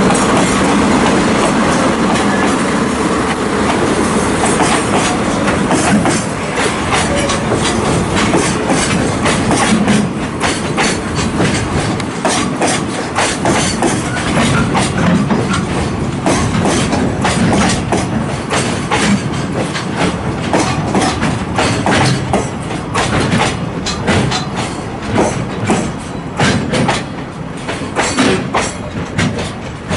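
JR Freight DD51 diesel-hydraulic locomotive running as it hauls a freight train by, its engine noise heaviest in the first few seconds. Then a long string of container wagons rolls past, wheels clicking rhythmically over the rail joints, getting a little quieter near the end as the train draws away.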